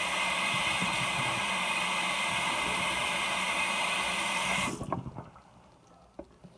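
Water running steadily from a tap, then shut off almost five seconds in, followed by a few faint knocks.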